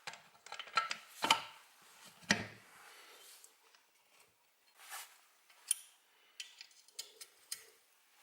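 Steel parts of a homemade belt grinder being handled and fitted together by hand: scattered knocks and clinks, the two loudest about a second and two seconds in, with a few sharper ticks near the end.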